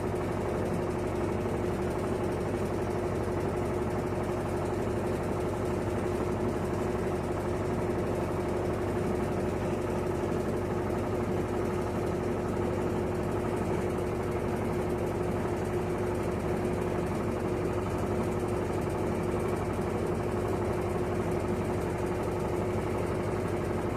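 Electrolux LT12F washing machine spinning a load of rugs at a steady speed: an even motor hum with a constant whine.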